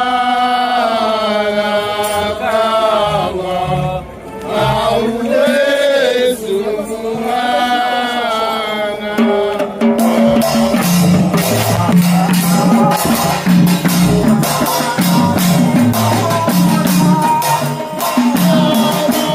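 Singing of a slow melody with long held notes. About halfway through it gives way to manzaraka procession music: a big drum and frame drums struck in a steady beat under chanting voices.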